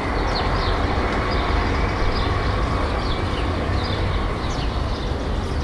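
City street ambience: a steady low rumble of traffic, with small birds chirping over it.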